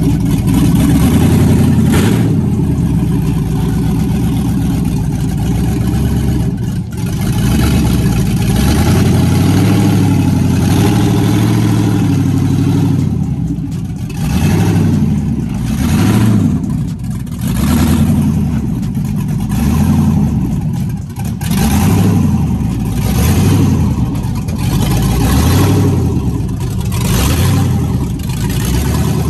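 Box-body Chevrolet Caprice engine running, loud, then blipped repeatedly from about halfway through, the revs rising and falling roughly every second and a half.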